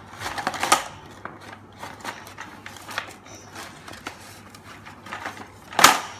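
Cardboard Happy Meal box crackling and crunching as a plastic toy monster truck is pressed down onto it, with scattered plastic clicks and knocks. A louder sharp crunch or knock comes near the end.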